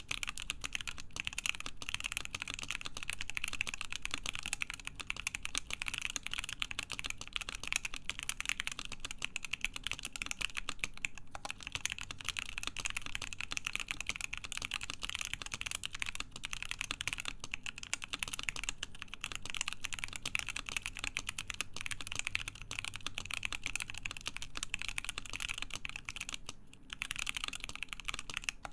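Continuous fast typing on a Cannon Keys Savage65 mechanical keyboard with stock, unlubed JWK Lilac linear switches, a full FR-4 plate and Hammerworks CRP keycaps: a dense run of keystroke clacks. There is a brief pause near the end.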